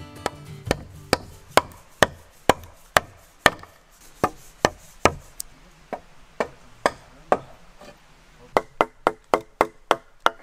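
Hatchet chopping into a wooden log: a run of sharp strikes about two a second, a few scattered strikes, then a quicker run near the end.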